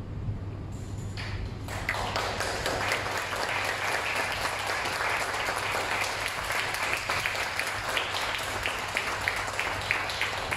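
Audience applause breaking out about two seconds in, after the string orchestra's final chord has died away, and then going on steadily with single claps standing out.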